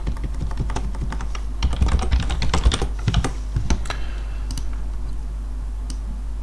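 Computer keyboard typing: a quick run of keystrokes in the middle, then a few scattered clicks, over a steady low hum.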